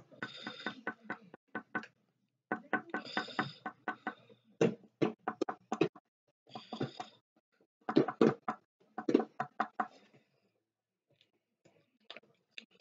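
Felt-tip pen tapping dots onto paper: rapid runs of sharp taps, several a second, in bursts with short pauses, thinning to a few taps near the end.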